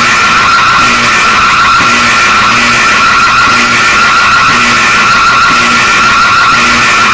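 Emergency alert system (EAS) alarm tone: a loud, harsh, distorted high tone held steadily, with a short low beep repeating about once a second underneath.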